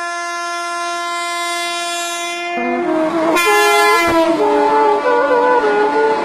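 Train horn sounding one long steady blast that breaks off about two and a half seconds in. A second blast drops in pitch, then a melody of changing notes takes over near the end.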